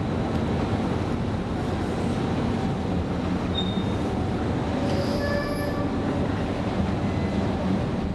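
Steady rumble of a Stockholm metro train running through the station, with a brief high squeal about five seconds in.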